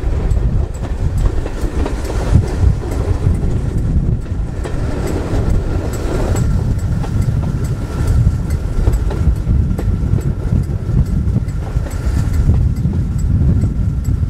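A steam-hauled passenger train running along the line, heard from an open carriage window: a steady low rumble of the coach on the track, with frequent light clicks from the wheels and rails.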